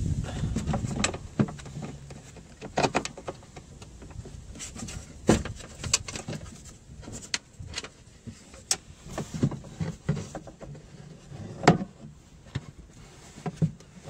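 Irregular clicks, taps and knocks of hand work inside a car door as a new exterior release cable is fed into the door lock of a 2008 Range Rover L322.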